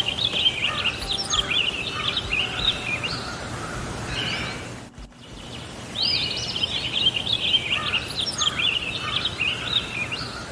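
A songbird singing rapid warbling, chirping phrases over a low steady outdoor background, a stock birdsong recording that breaks off briefly near the middle and then starts again, the same phrases heard a second time.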